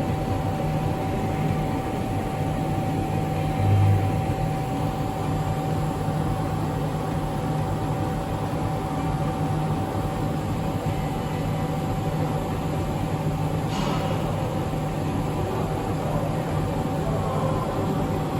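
CNC router running steadily with a constant mid-pitched tone over a low hum, as it mills wood. There is a brief low thud about four seconds in and a short click near the end.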